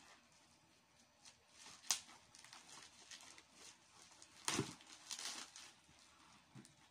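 Bubble wrap and a cardboard box crinkling and rustling as a wrapped package is handled and cut open with scissors. There is a sharp click about two seconds in, and a louder crinkle of plastic about four and a half seconds in.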